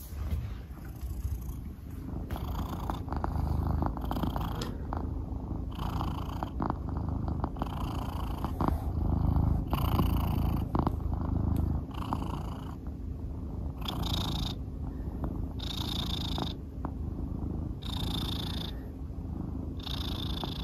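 A Scottish Fold cat purring close up, a steady rumble that swells with each breath about every two seconds.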